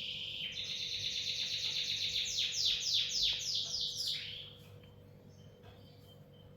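Pet lovebird calling with a harsh, continuous high chatter that breaks into a quick run of downward-sweeping chirps, then stops about four seconds in; a few faint ticks follow.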